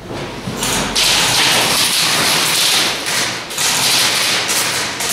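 Airsoft guns firing long rapid bursts, a dense stream of sharp clicks. It starts about a second in, breaks briefly past the middle, then resumes.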